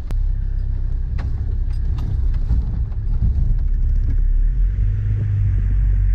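A four-wheel-drive vehicle's engine drones low, heard from inside the cabin as it crawls over a rough dirt track, with a few sharp knocks and rattles from the body over bumps. The engine note settles into a steadier hum about three-quarters of the way through.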